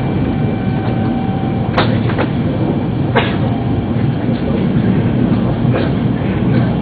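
Running noise of a Yamagata Shinkansen Tsubasa train heard from inside the passenger car: a steady low rumble of wheels on rail, subdued by the deep snow along the line. Two sharp clicks sound about two and three seconds in.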